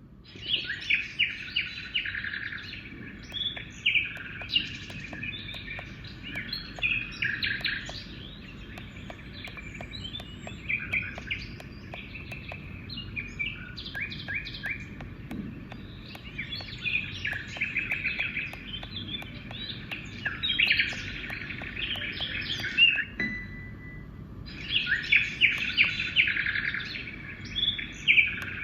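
Recorded birdsong played by a Douni white noise sound machine on a nature-sound setting: many birds chirping and trilling over a steady background hiss.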